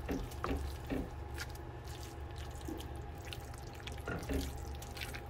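A wooden spoon stirring a thick, creamy chicken and vegetable filling in a steel skillet: soft wet squelches with a few light taps and scrapes against the pan.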